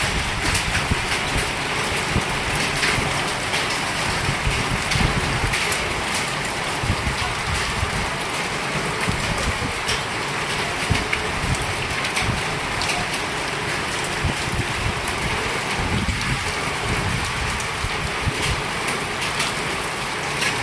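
Heavy rain pouring down steadily, with many sharp ticks of drops striking hard surfaces and gusts rumbling on the microphone.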